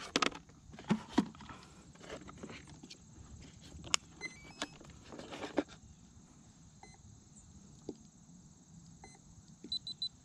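Clicks and knocks of hands handling a foam RC jet and connecting its flight battery. The jet's onboard electronics then power up with short electronic beeps: a brief run of stepped tones about four seconds in and three quick beeps near the end.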